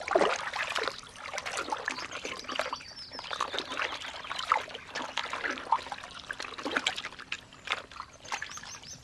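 Otter splashing and paddling in shallow water as it hunts, with many small irregular splashes and trickling water.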